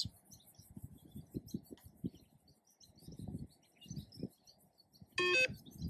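A single short electronic beep from the Yo-Yo test recording near the end, the start signal for the first shuttle run. Before it, birds chirp faintly over a low, uneven rumble.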